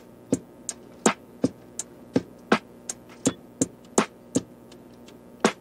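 Background music with a sparse, steady beat of short crisp percussive hits, about three a second.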